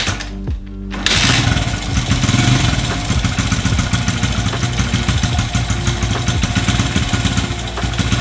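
Honda XR100 dirt bike's small single-cylinder four-stroke engine catching about a second in and then running steadily, warming up to bake in freshly applied exhaust paint.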